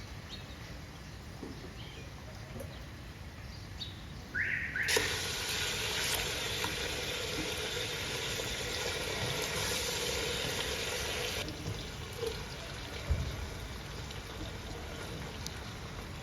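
Water pouring or running in a steady stream for about six seconds, starting and stopping suddenly, with two short rising squeaks just before it starts.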